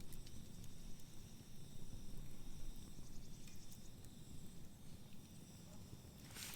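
Faint crackle of a wood campfire: scattered small pops and ticks over a low steady rumble, with a faint steady high hiss, and a sharper pop near the end.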